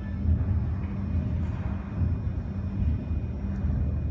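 Steady low rumble with a hum underneath, like machinery running in the background.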